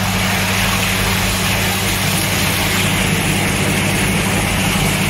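Kadda Aisha hydromassage bathtub's massage pump running, a steady electric hum under the even rush and churn of the water jets stirring the filled tub.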